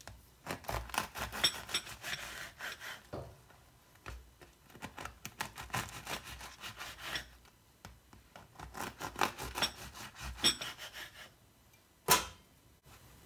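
A knife sawing through a crusty bread roll on a wooden cutting board: three bouts of quick scraping strokes, each about three seconds long, one per slice. A single sharp knock near the end.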